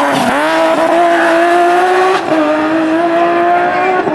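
BMW E30 rally car's engine accelerating hard out of a hairpin: a rising note, an upshift about two seconds in, then rising again to another upshift near the end.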